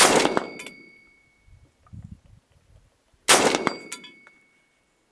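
Two shots from an AR-15 rifle about three seconds apart, each followed a moment later by a distant steel target ringing from the hit, the ring hanging on for a second or more.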